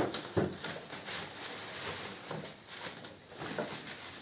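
Packaging being handled and opened around a vacuum cleaner: two sharp knocks in the first half second, then uneven crackling and rustling.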